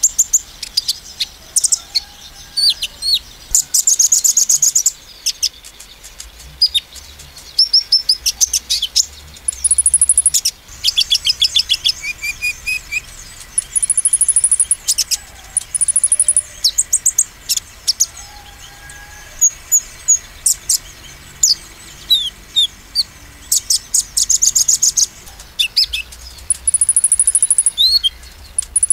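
Male sunbird (konin) singing in loud repeated bursts: very high, fast ticking trills and thin buzzing trills, with short sharp chirps between them. This is the rapid 'nembak' song used to provoke rival konin.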